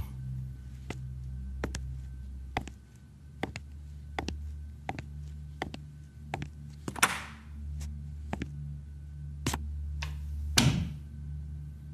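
Footsteps on a hard floor, sharp taps and thunks about once a second, and a door being handled, over a low steady hum. There is a longer swish about seven seconds in and another near the end.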